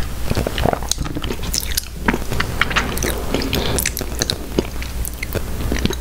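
A plastic spoon scraping around the inside of a plastic sundae cup, then soft ice cream and hot fudge being eaten from the spoon, with an irregular run of short, sharp, wet mouth clicks and lip smacks.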